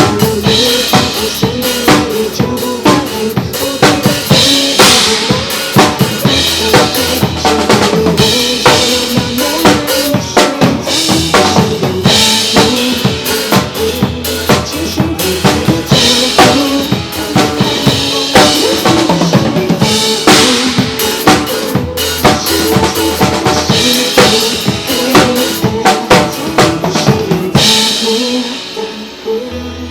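Drum kit played live in a steady pop groove, with bass drum, snare and rimshot strokes, over a recorded backing track of the song. The backing thins out briefly near the end before the beat comes back.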